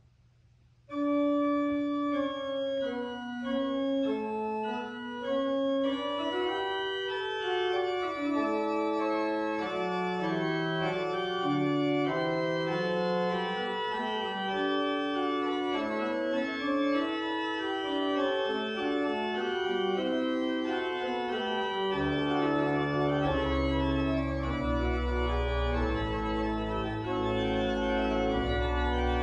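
Church organ playing the closing postlude. A melody line over a held low note begins about a second in, and near the end deep pedal bass notes and fuller chords come in.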